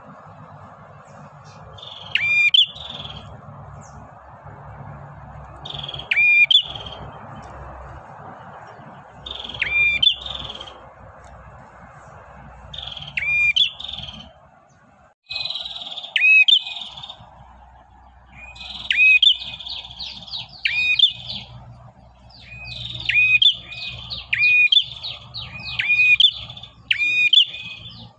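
Male red-headed prenjak, a small songbird, singing to call a female: a sharp, high call repeated about every three to four seconds, then quicker runs of notes in the second half. A steady fainter hiss lies underneath.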